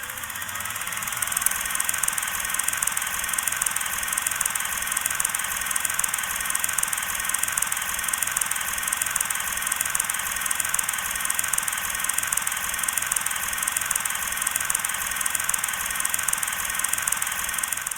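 A steady whirring noise with a fast, even flutter, like a small motor or fan running; it fades in over the first couple of seconds and cuts off suddenly at the end.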